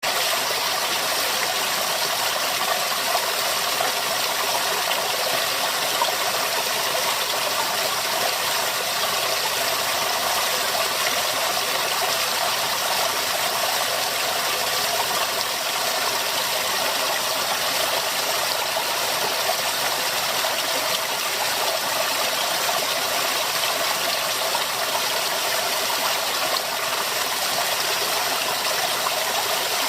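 Running water flowing steadily, an even rushing hiss with no breaks or changes.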